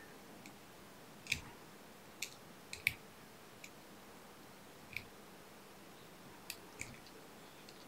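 Faint, irregular small clicks and ticks, about eight of them, from fine handwork at a fly-tying vise as the fly's dubbed body is picked out into fluff.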